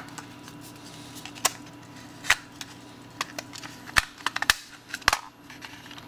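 Sharp plastic clicks and snaps as the top shell of a Logitech M570 trackball mouse is pressed onto its base: about ten irregular clicks, the loudest in the second half.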